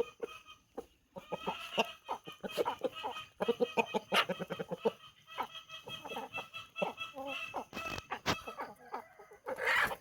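Chickens clucking: a busy run of short, overlapping clucks, with one louder, longer call near the end.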